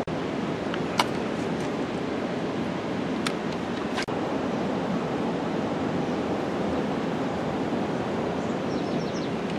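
Steady rushing noise with a few sharp clicks, the loudest about a second in and others around three to four seconds in.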